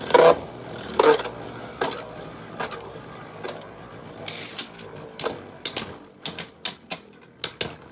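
Two Beyblade spinning tops whirring in a clear plastic stadium and clacking against each other and the stadium walls. Several loud clacks come in the first second or so, then a steady whir with sharp clicks that come more often, about two or three a second, near the end.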